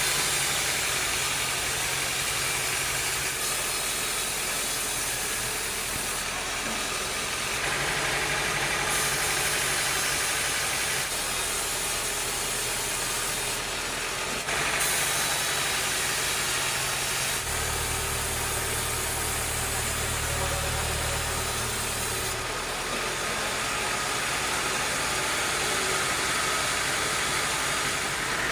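Sawmill machinery running: a steady engine-like noise with a low hum underneath, its character shifting abruptly several times.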